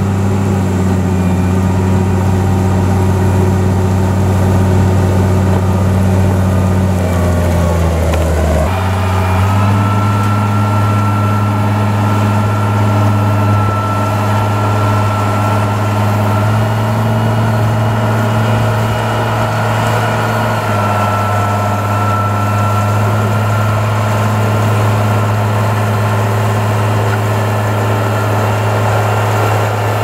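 Komatsu GD505A motor grader's diesel engine running steadily while it grades gravel, a constant low drone. About eight seconds in the engine note drops and then settles at a slightly different steady pitch.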